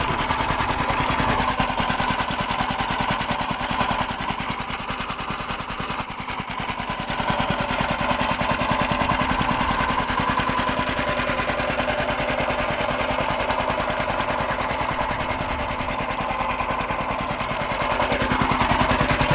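A fishing boat's engine running steadily at trolling speed, an even rapid chugging with a constant hum, getting slightly louder near the end.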